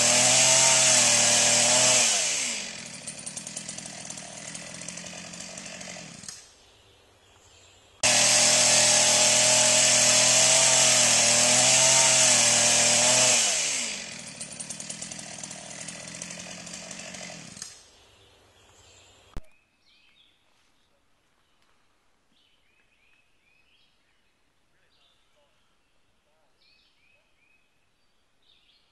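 Chainsaw cutting at full throttle, its pitch wavering under load, then released and falling to a ticking idle; this happens twice. It cuts off abruptly about two-thirds of the way through, leaving faint bird chirps.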